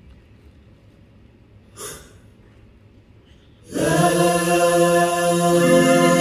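A quiet pause with a faint hiss and one brief noise about two seconds in. Just before four seconds in, a loud held chord of choir-like voices comes in, and one note in it moves near the end.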